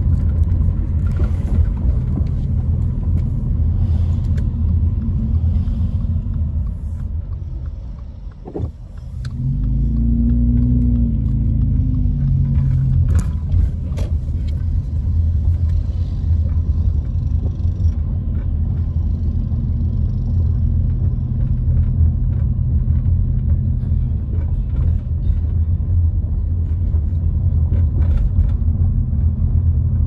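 Car engine and road rumble heard from inside the cabin while driving slowly, steady and low. About eight seconds in it goes briefly quieter, then the engine note rises again as the car picks up speed.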